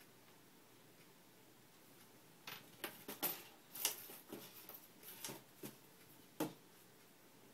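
Small loose objects clicking and knocking against the inside of an emptied desk drawer as a cat paws and bats at them. The clicks start about two and a half seconds in and come in an uneven run of light taps for several seconds.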